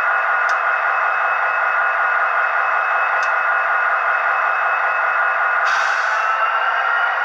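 HO-scale model diesel locomotive sitting stationary with its lights on, a steady hiss through a small speaker with faint humming tones that waver slightly in pitch, like a sound decoder's idling prime mover. A brief sharper hiss sounds about six seconds in.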